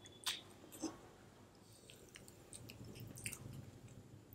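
Close-miked chewing of soft food, mac and cheese and butter-garlic bread, with wet mouth clicks and smacks. Two sharper clicks come in the first second, then a run of small, quicker clicks about two to three seconds in.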